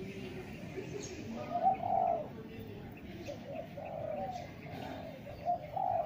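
Spotted dove (tekukur) cooing: low, hollow coo phrases that recur about every two seconds, with faint chirps of other small birds behind.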